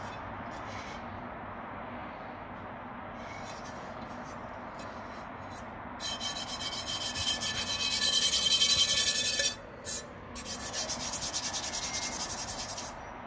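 Rasping rubbing in quick repeated strokes. It starts about six seconds in and grows louder, breaks off briefly, then resumes more softly until near the end. A steady low hiss comes before it.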